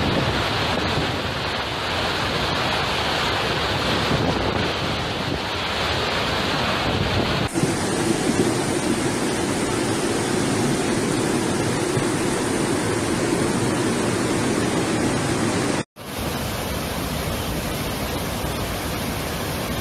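Floodwater torrents rushing and pouring over rocks in a steady loud wash of water noise, with wind on the microphone. The sound changes abruptly about seven and a half seconds in, and again at about sixteen seconds after a brief dropout, as one flood clip gives way to the next.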